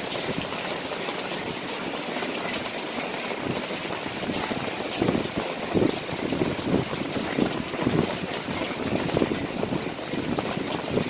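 Steady rain falling, with irregular heavier low splashes joining in from about halfway.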